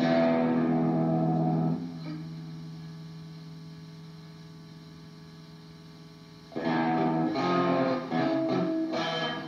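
Electric guitar played through distortion and effects. A phrase ends on a low note that rings out and slowly fades for about five seconds, then the playing starts again suddenly with quick notes.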